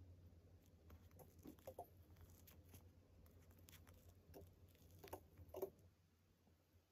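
Near silence: faint, scattered light taps and clicks over a low steady hum.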